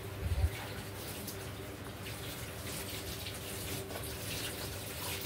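Water running steadily, with a low steady hum underneath; a few low thumps right at the start.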